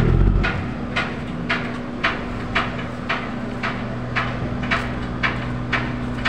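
A diesel engine of a vessel in the shipyard runs with a steady low hum. Over it come sharp, evenly spaced knocks, about two a second.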